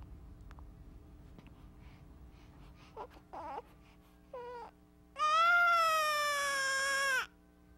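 Newborn baby fussing with a few short whimpers, then one loud cry about two seconds long, starting about five seconds in and falling slightly in pitch.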